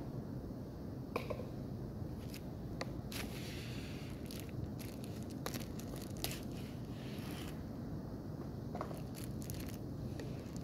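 Plastic wrap crinkling and packing tape being peeled and torn off a cardboard shipping tube, with scattered sharp clicks and rustles from handling the packaging, over a steady low hum.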